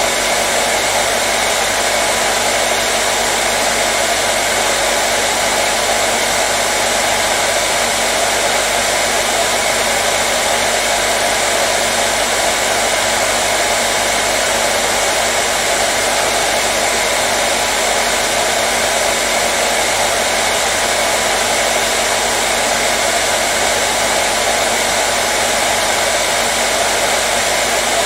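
Hairdryer running steadily: a constant, unchanging rush of blown air over a faint motor hum, played as soothing white noise for colicky babies.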